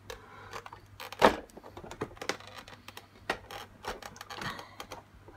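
Plastic clips and panels of an electric cool box lid clicking and snapping as the white inner shell is forced away from the blue outer shell by hand. Irregular sharp snaps, the loudest about a second in.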